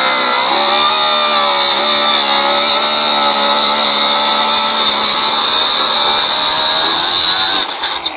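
Angle grinder cutting steel, a loud steady motor whine with a bright hiss of the disc on metal; the trigger is released near the end and the motor winds down.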